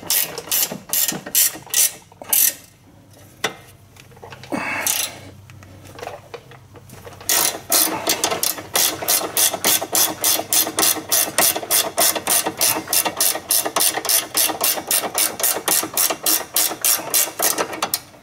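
Hand ratchet clicking rapidly as it tightens a sway bar end link nut. There are short runs of clicks, a pause of a few seconds, then a long steady run at about five clicks a second.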